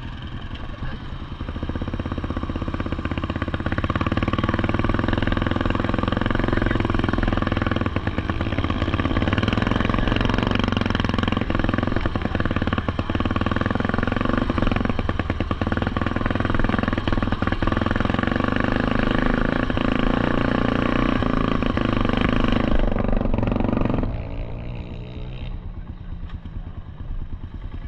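Several small ATV and three-wheeler engines running close by, blending into a steady drone. It grows louder a few seconds in and drops off sharply near the end.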